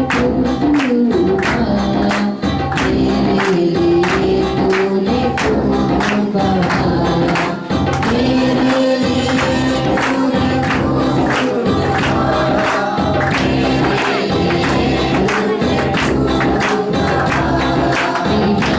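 Christian worship song: voices singing together over a steady percussion beat.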